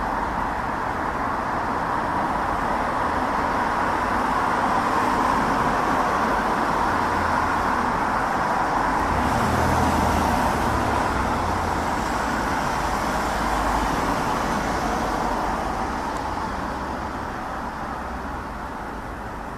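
Distant roar of a Boeing 777 airliner's jet engines high overhead, a steady rushing noise that swells slightly and then fades over the last few seconds.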